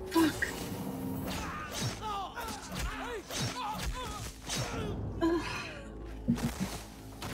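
Action-film fight-scene soundtrack: short gliding vocal sounds and score over a continuous bed, with sharp hits just after the start and about five seconds in.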